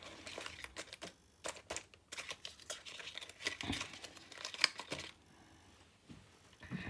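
Rustling and crinkling with light clicks as things are handled, dying down after about five seconds.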